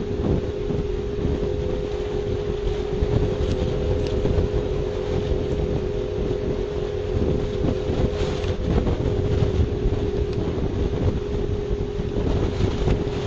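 Wind rumbling on an outdoor webcam microphone, over a steady hum that runs throughout, with a few faint ticks.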